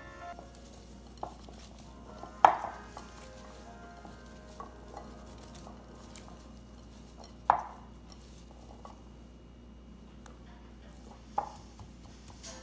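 Hands tossing raw diced vegetable cubes in a bowl: soft clicks and rustles of the pieces, with three sharp knocks against the bowl that ring briefly, about two and a half, seven and a half and eleven and a half seconds in.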